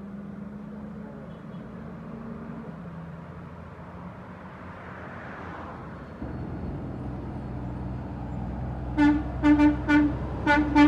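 An International dump truck's diesel engine grows louder as the truck approaches, stepping up about six seconds in. Near the end its horn gives about five short toots in quick succession.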